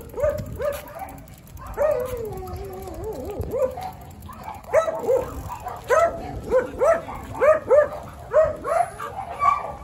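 A dog yapping and whining in high-pitched calls. A long, wavering whine comes about two seconds in, and from about five seconds in there is a steady run of short yaps, about three a second.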